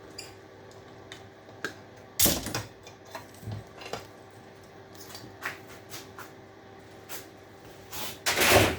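Scrap metal and electrical parts being handled and tossed around: scattered knocks and clicks, with a loud clattering crash about two seconds in and a louder one near the end.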